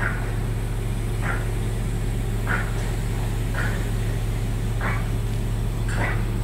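Crawler crane's diesel engine running steadily with a deep hum. Over it, a short high chirp repeats about every second and a quarter, six times.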